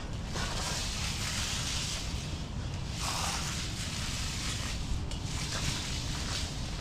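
Concrete finishing broom dragged across freshly poured concrete to give it a broom finish, making about three long scraping strokes.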